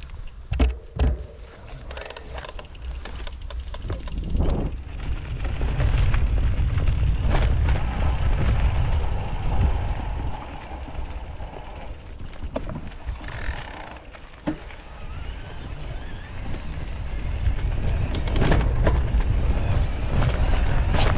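Mountain bike riding along a dirt trail: a steady rumble of tyre and wind noise, with the bike rattling and knocking sharply over bumps. It grows louder in the middle and again near the end.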